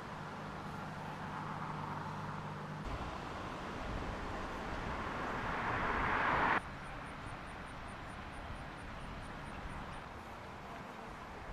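Outdoor street ambience: a vehicle passes, growing louder until the sound cuts off suddenly, followed by faint, rapid, high-pitched beeping.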